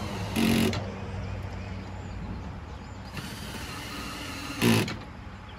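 DeWalt cordless drill driving rubber-washered roofing screws through plexiglass in two short bursts, one near the start and one about four and a half seconds in, with the clutch set low on 2 so as not to crack the plexiglass. A steady low hum runs beneath.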